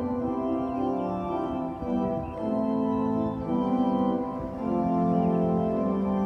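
Organ playing slow, held chords that change every second or so.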